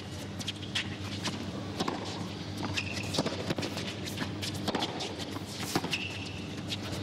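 Tennis being played on a hard court: sharp pops of the ball bouncing and being struck by racquets, and short squeaks of shoes on the court about three seconds in and again near six seconds, over a steady low hum.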